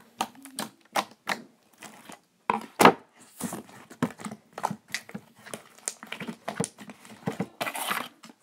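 Giant fluffy slime pressed and patted by hand, making irregular sticky clicks and pops, with one louder snap about three seconds in. Near the end the slime is pushed into a clear plastic tub, giving a longer crackly rustle.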